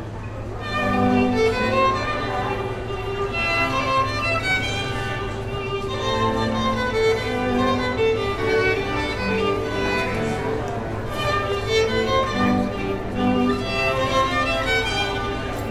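Classical string music led by violin, with other bowed strings underneath, growing louder about a second in.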